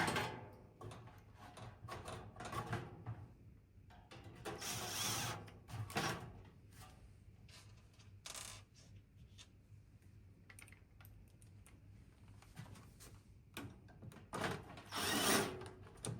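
Hand work on a PC case: irregular clicks, knocks and scraping, with two longer rushing scrapes lasting about a second each, one about five seconds in and one near the end, over a low steady hum.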